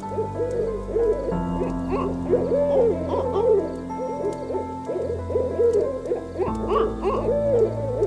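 Animal calls: a rapid series of short, low-pitched arching calls, several overlapping, over sustained low steady tones.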